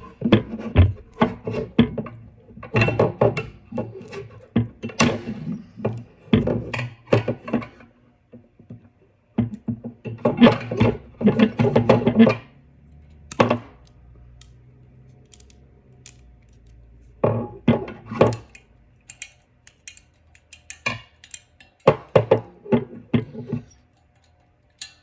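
Repeated clicks, clanks and knocks of a metal wire desk organizer being worked by hand and with a tool to break wires off, coming in clusters with short pauses.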